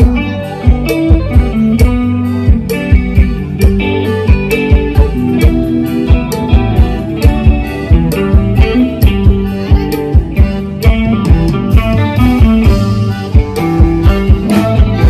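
Loud instrumental band music: electric guitar over a steady drum beat.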